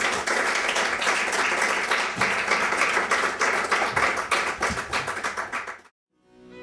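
Audience applauding: dense, even clapping that cuts off abruptly near the end. Music begins just after it.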